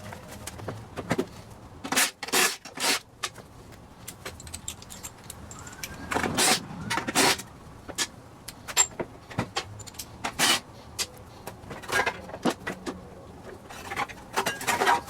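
Hand tools and metal parts on a push mower clicking, knocking and scraping in an irregular string of sharp hits, with a couple of longer scrapes partway through, as the mower is taken apart.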